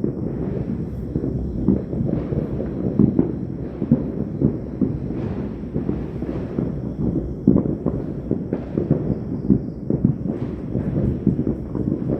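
Fireworks and firecrackers going off without a break: many overlapping bangs and booms in an irregular barrage, heaviest in the low end.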